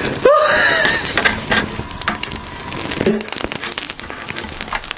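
Pork tail burning in the open flame of a portable butane gas stove, its fat crackling with many quick pops. A short voiced exclamation rises and falls just after the start.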